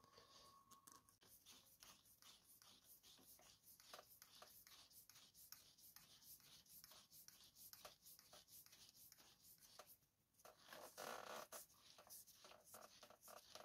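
Faint handling of a motorcycle front-wheel axle and its spacer being slid and turned by hand in the fork legs: light metal ticks and rubbing, with a slightly longer, louder rub near the end.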